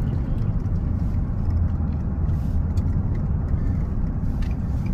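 Steady low rumble of engine and road noise heard from inside a moving vehicle's cab at driving speed.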